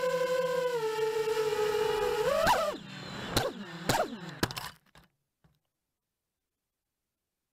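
Realacc Genius 215 FPV quadcopter's brushless motors whining steadily, picked up by its onboard camera, dipping slightly in pitch about a second in. Halfway through the pitch rises briefly and four sharp knocks follow as the quad comes down on the gravel, then the sound cuts out.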